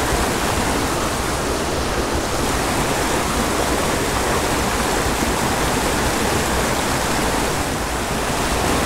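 A small mountain creek tumbling over a short cascade into a pool: a steady rush of whitewater.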